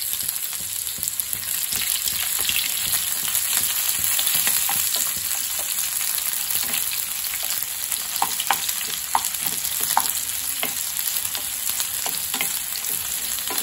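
Sliced onion sizzling in hot oil in a frying pan as it is stirred with a wooden spatula, with a few sharp knocks of the spatula against the pan past the middle.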